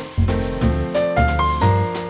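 Background music: a keyboard melody of short held notes over a steady bass line.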